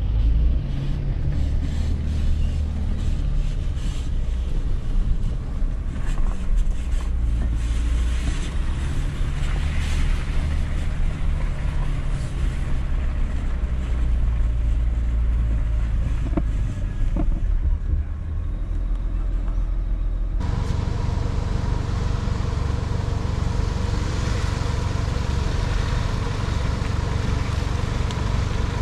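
Mercedes Sprinter van's diesel engine driving slowly off-road, a steady low drone with wind on the microphone. About two-thirds of the way through the sound changes abruptly to the van's engine heard from outside as it crawls along a muddy track.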